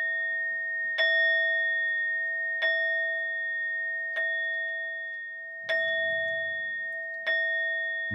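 A bell-like metal instrument struck five times, about once every second and a half, each stroke ringing on in two clear steady tones, one middle and one high, that carry over into the next stroke.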